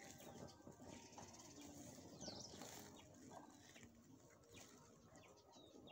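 Near silence: faint outdoor rural background, with a short distant bird chirp about two seconds in.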